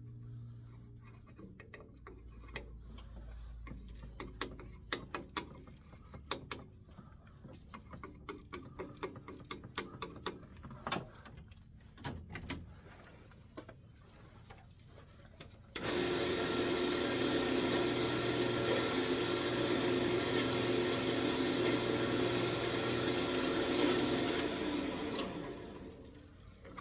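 Scattered small clicks and knocks of tools and parts being handled at a wood lathe, then the lathe motor starts abruptly, runs steadily for about eight seconds, and is switched off and winds down.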